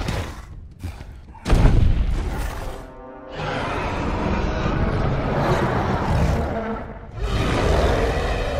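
Movie-style monster-fight soundtrack: a heavy boom about a second and a half in, then long rough creature growls and roars over dramatic music.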